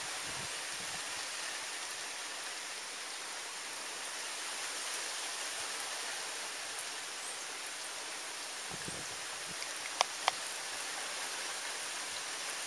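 Steady rain falling, an even hiss with no let-up, with two sharp taps about ten seconds in.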